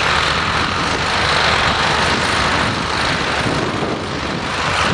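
County 1454 four-wheel-drive tractor's six-cylinder diesel engine running steadily under load while pulling a plough through the soil.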